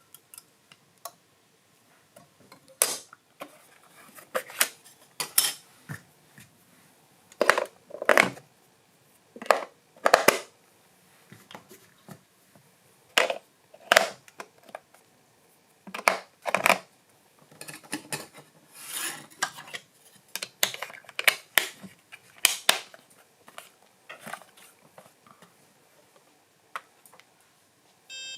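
Irregular clinks and knocks of hard metal parts being handled and set down, some with a short ring, with quiet gaps between them.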